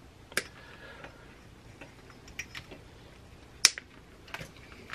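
Heavy-duty wire cutters snipping through cable ties and power-supply wires, several sharp snaps spaced out over the seconds, the loudest a little past halfway, with light rustle of the wire bundle being handled.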